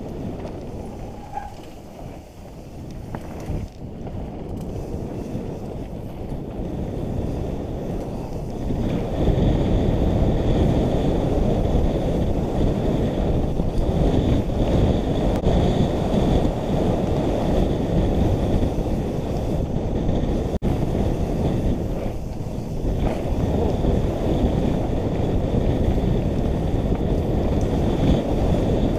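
Wind buffeting the microphone of a bike-mounted action camera, mixed with tyres rolling and rattling over a dirt mountain bike trail during a fast downhill descent; it gets louder about nine seconds in as the speed picks up.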